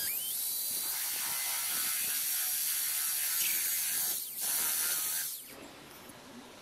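Electric drill driving a screw into wood: the motor spins up with a rising whine, runs steadily for about four seconds, stops briefly, then runs again for about a second before stopping.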